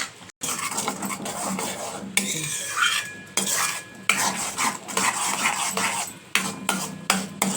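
A spoon stirring a tomato and garlic sauce in a pan, scraping and clinking against the pan in irregular strokes, with a faint sizzle of the sauce cooking in oil.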